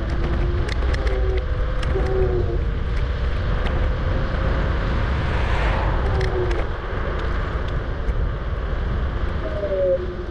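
Riding an electric scooter: heavy wind rumble on the microphone and road noise, with the motor's whine as thin tones that hold and slide up and down in pitch. Scattered light clicks and rattles are heard throughout.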